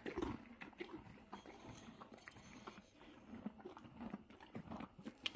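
Horse munching a crunchy peppermint treat: faint, irregular crunches and small clicks.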